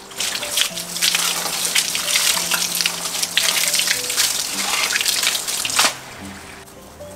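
Water running from a garden hose and splashing, then cutting off about six seconds in.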